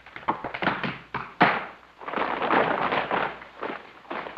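Tap shoes striking a wooden deck in an unaccompanied solo tap dance: quick runs of taps and heavier stamps, the loudest stamp about a second and a half in and another at the end, with a stretch in the middle where the taps run together.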